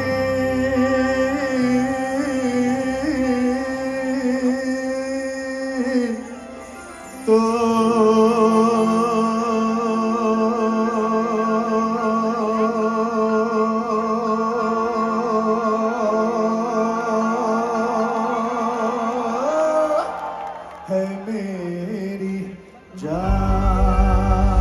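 Live band music played over a concert PA: long held melodic notes with a slight waver, a brief dip about six seconds in, then heavy bass comes in as the full band kicks in near the end.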